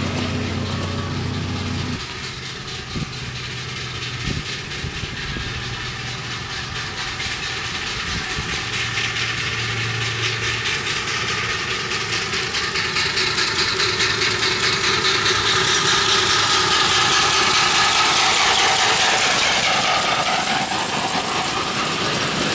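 Miniature railway train hauling open passenger carriages, approaching along the track and growing louder until it passes close by near the end, its wheels ticking rapidly over the rails. A low steady hum stops about two seconds in.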